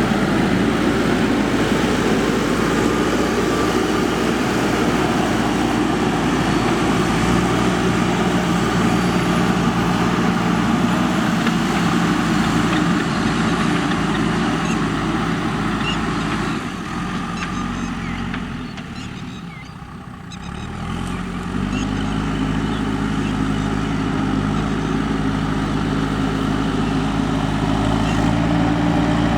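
JCB 3DX backhoe loader's diesel engine running steadily under work. It drops away briefly about two-thirds of the way through, then comes back up to a higher, steady pitch.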